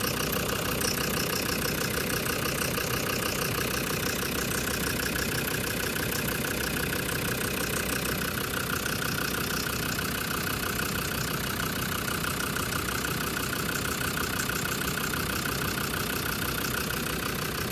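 Land Rover Defender TD5's five-cylinder turbodiesel idling steadily with a knock, which the owner takes to be most likely faulty hydraulic lash adjusters.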